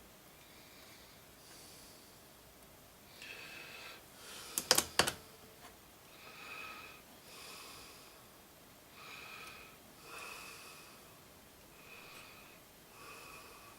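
Soft breathing close to the microphone, a faint nasal hiss that comes and goes roughly every second. A quick cluster of sharp clicks, the loudest sound, comes about five seconds in.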